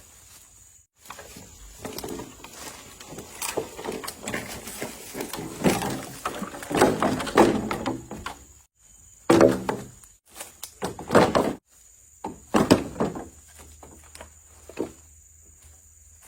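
Irregular knocks and thunks, as of wood or sticks being handled, with a few louder hits about halfway through and short pauses between them.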